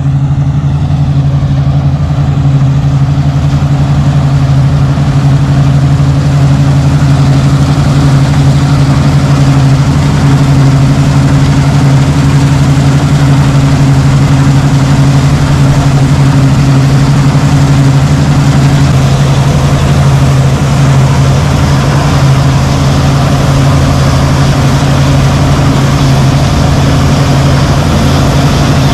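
CLAAS combine harvester running steadily under load while cutting and threshing grain: a deep, even engine hum over the rushing noise of the header and threshing machinery.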